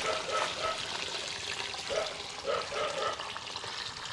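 Steady trickling, splashing liquid with a hiss, with people talking quietly behind it.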